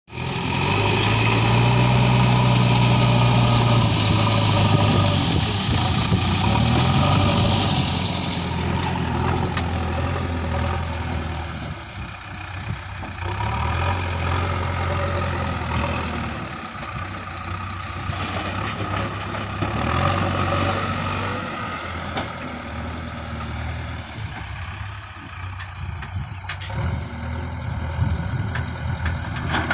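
JCB 3DX backhoe loader's four-cylinder diesel engine running under load as it scoops and lifts soil. It runs hardest for the first several seconds, then its speed drops and rises again several times as the loader works.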